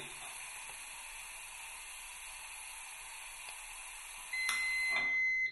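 Compressed calibration gas hissing steadily from a cylinder through a 6 LPM flow regulator into a breathalyzer during calibration. About four seconds in, the instrument gives a steady high beep lasting about a second, with two clicks: the signal that it has taken the gas sample. The hiss stops at the very end.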